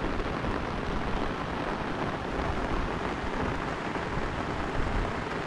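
Heavy rain pouring steadily, an even hiss with no break.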